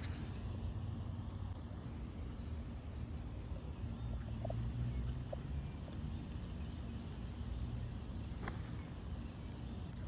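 Steady high insect chirring over a low outdoor rumble, with a single faint click late on.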